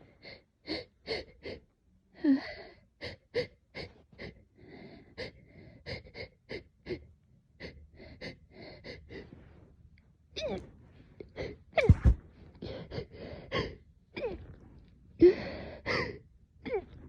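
A person's rapid, spasmodic hitching breaths, short sharp gasps two or three a second, broken by several louder sneezes. It is an allergic reaction to a cat.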